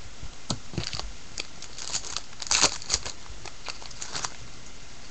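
Foil wrapper of a 2009 Bowman Draft baseball card pack crinkling and tearing as it is peeled open by hand: a scatter of short crackles, loudest about two and a half seconds in.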